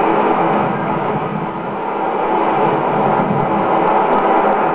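Sea waves breaking on the shore, a steady rushing noise that dips briefly about a second and a half in.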